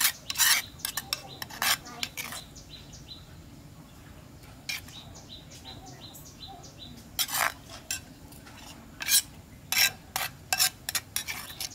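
Metal kitchenware clinking and knocking: a ladle and bowls tapping against an aluminium pot and steamer in irregular clusters of sharp clicks, busiest near the end.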